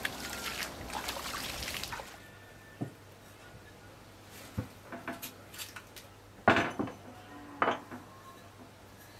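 Water thrown out of a bowl splashing for about two seconds, then a series of short knocks and clinks as clay jugs and metal bowls are handled on a table, with two louder knocks near the end.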